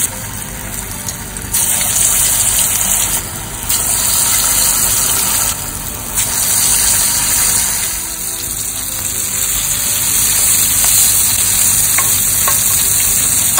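Green banana koftas deep-frying in hot oil in a kadhai, a steady sizzling that steps up and down in level a few times. A few light clicks come near the end as a slotted metal spatula works among the fried koftas.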